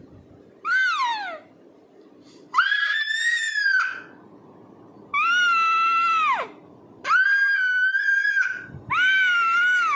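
A person's voice making five high-pitched squeals, each about a second long. The first slides down in pitch; the others hold a steady pitch and drop off at the end.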